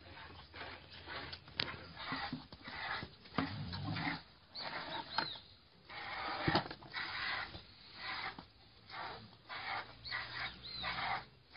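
Piglet suckling at a cow's teat: irregular sucking noises in short bursts, with a sharp click about halfway through.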